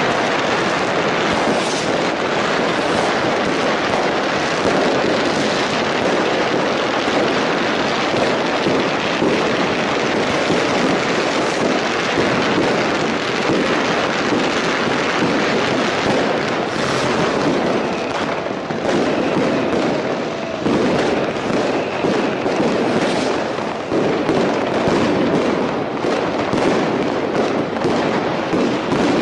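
New Year's Eve fireworks going off without a break: a dense, continuous crackle of firecrackers and rockets, with separate sharp bangs standing out more often in the second half.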